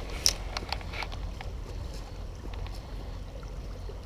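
Low, steady wind rumble on the camera microphone outdoors, with a few light clicks in the first second.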